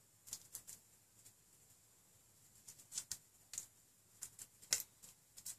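Faint crinkling and light clicks of Kapton tape being wrapped by hand around the bottom of a J-head hotend, coming in small scattered groups with the sharpest tick a little before five seconds in.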